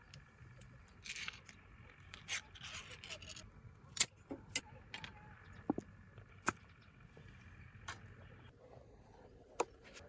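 Small hard objects being handled: scattered sharp clicks and clinks, the loudest about four seconds in, with short rustling scrapes near the start.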